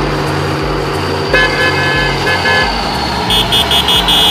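Truck sound effects: an engine running with a steady low pulse, a horn-like toot about a second in, then a run of short high beeps near the end, about four a second.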